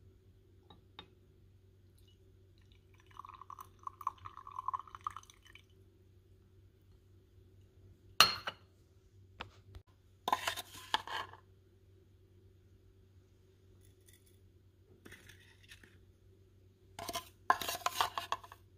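A Bialetti Brikka moka pot being filled and assembled: a short trickle of water poured into the metal base about 3 seconds in, a sharp metal clink about 8 seconds in, and clattering of metal parts a couple of seconds later. Near the end, a spoon scrapes and clinks as coffee grounds are added to the filter basket.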